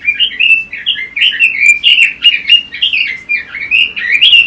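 Pekin robin (red-billed leiothrix) singing a fast, continuous warbling song of quick up-and-down notes.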